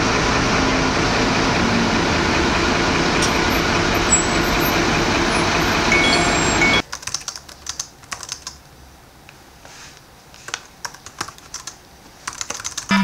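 A loud, steady wash of noise cuts off abruptly about seven seconds in. It is followed by quiet laptop keyboard typing: scattered, irregular key clicks.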